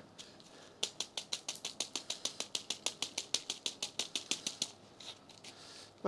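Rapid, even tapping on a small clear plastic plant pot of chunky potting mix, about six sharp taps a second. It starts about a second in and stops after about four seconds, settling the mix around the newly potted cutting.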